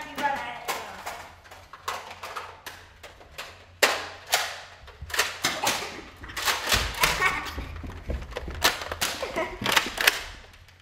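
Irregular sharp knocks and thuds, at times several a second, with a low rumble from about seven to eight and a half seconds in.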